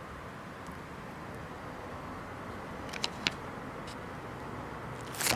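Two light clicks about three seconds in and a louder clack near the end, as parts of a Holden 308 V8 engine are handled during assembly, over a steady background hiss.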